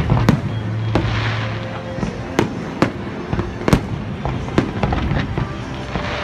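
Fireworks display: aerial shells bursting in an irregular series of about a dozen sharp bangs, with a low steady hum beneath during the first two seconds.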